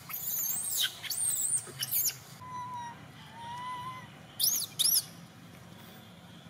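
Infant long-tailed macaque crying: a quick run of shrill, arching screeches, a few softer lower tones in the middle, then two loud shrill cries about four and a half seconds in. These are the infant's distress cries when it wants to nurse and its mother refuses.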